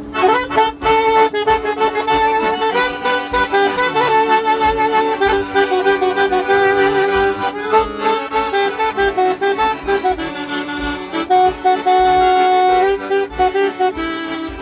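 Two chromatic button accordions playing a Christian hymn tune in harmony, with a saxophone, over a regular pulsing bass.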